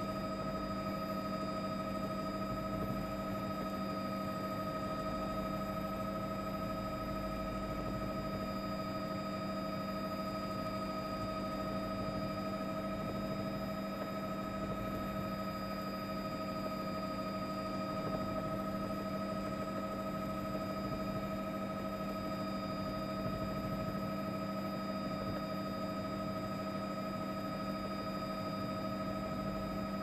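Steady helicopter cabin noise picked up on an open microphone: an even engine and rotor drone with constant whining tones over it.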